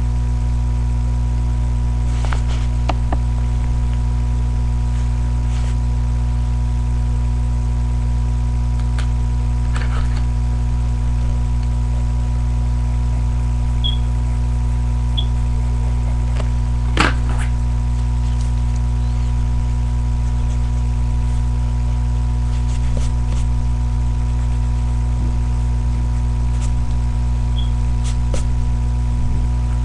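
Steady electrical hum made of several fixed tones, the low ones loudest. A few faint clicks and taps sound over it, the loudest about halfway through, along with three short high beeps.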